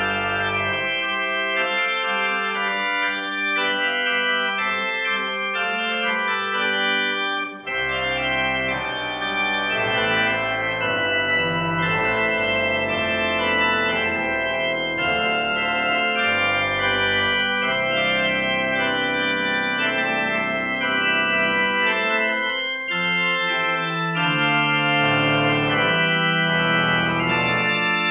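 Organ playing the closing voluntary of a church service: sustained chords that change every second or so. The deep pedal bass drops out twice for a few seconds, and there is a brief break about seven seconds in.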